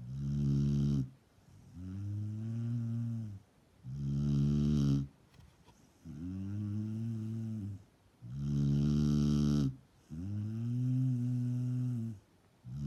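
A sleeper snoring in a steady rhythm of about one breath every four seconds. Each breath is a loud, rasping snore on the way in, followed by a quieter, pitched, humming sound on the way out.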